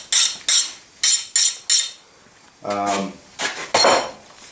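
Quick metal-on-metal rasping strokes on the freshly quenched steel froe blade, about three a second, in a run that breaks off about two seconds in and picks up briefly near the end.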